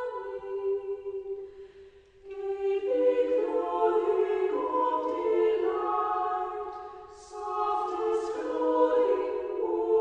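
Unaccompanied choir singing slow, sustained chords in several parts, breaking off for a moment about two seconds in before the next phrase.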